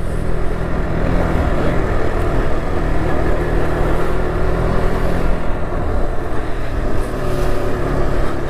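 KTM RC 200's single-cylinder engine running steadily as the motorcycle rides, with wind rush over it; the engine note drops lower about seven seconds in.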